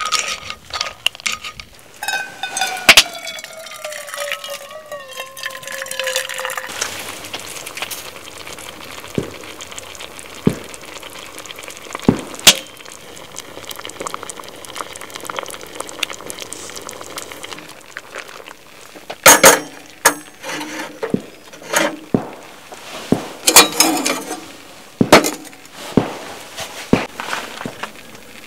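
Clams simmering in tomato sauce in an iron frying pan, with tongs clinking against the clam shells and the pan. The clinks come singly through the first half and in quick clusters in the last third, over a faint bubbling hiss, and a brief falling whine sounds a few seconds in.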